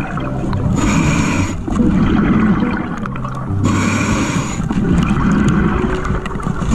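Scuba diver breathing through a regulator underwater: a hissing inhalation about a second in and again near four seconds, each followed by a longer bubbling exhalation, in a steady cycle of about three seconds.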